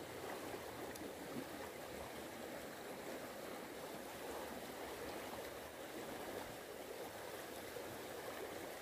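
Water in a shallow irrigation ditch flowing fast over riffles: a steady, even babble.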